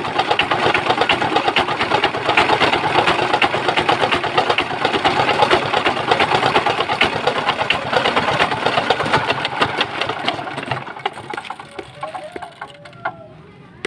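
Old West German-built Hatz diesel engine running with a dense, rapid knocking, then dying away over the last few seconds.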